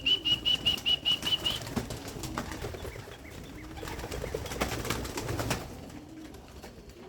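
A quick run of about eight short whistle notes at one high pitch, the feeding call that young homing pigeons are trained to answer, followed by pigeons flapping their wings and cooing.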